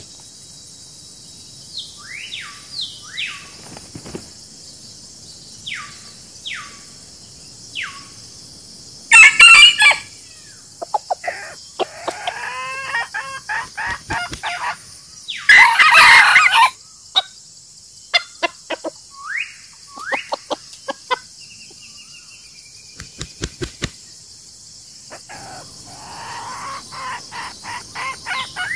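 Free-range rooster and hens calling: two loud crows about seven seconds apart, with short clucks and chirps scattered between them. A steady high hiss runs underneath.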